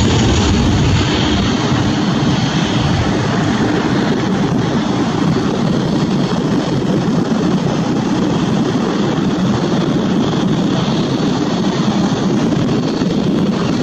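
Airbus A320 airliner's twin jet engines at takeoff thrust as it lifts off and climbs away: a loud, steady jet engine noise that eases slightly after the first second.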